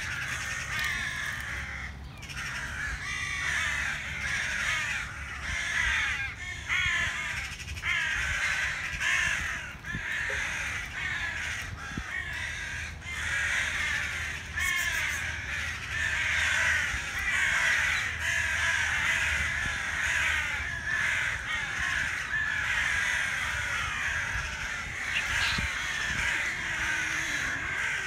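A dense, continuous chorus of many birds calling and chattering at once, with no break.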